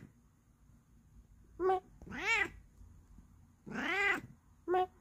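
Bengal cat meowing. A short call comes about one and a half seconds in, followed by a longer meow that rises and falls in pitch. Another long rising-and-falling meow comes about four seconds in, and a short call follows near the end.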